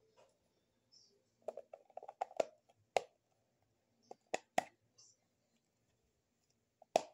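Hard plastic clicking and knocking as a white plastic toothbrush holder is handled: a quick cluster of clicks about a second and a half in, sharper single knocks near three and four and a half seconds, and one more near the end.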